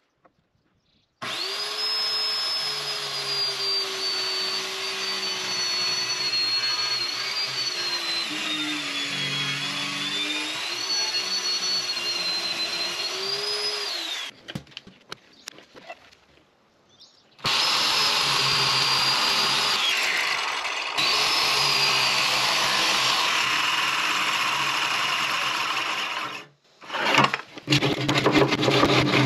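Circular saw plunge-cutting through the wooden face of a sink-base cabinet along a clamped guide. It makes two long cuts a few seconds apart, its motor whine dipping in pitch and recovering as the blade loads up in the wood. Near the end, irregular scraping and knocking on the wood.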